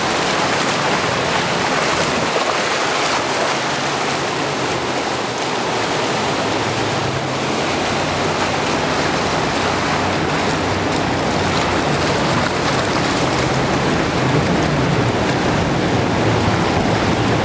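Steady loud rush of whitewater rapids. Underneath it, the low drone of a jet boat engine comes in about a third of the way through and grows louder near the end.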